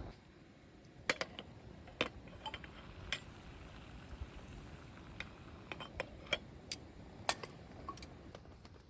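About a dozen irregular, sharp light clicks and clinks, some with a brief ring, as of small hard utensils or cookware being handled.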